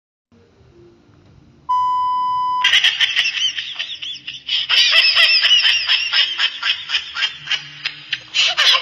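A steady beep tone lasting about a second, then high-pitched laughter in rapid bursts, several a second, used as a comedy laugh sound effect.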